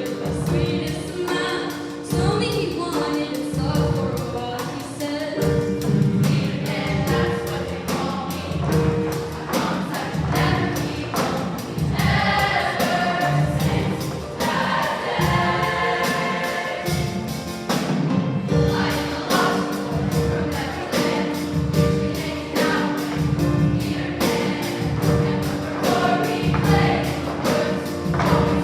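School choir singing in parts over instrumental accompaniment with held notes and a steady low beat.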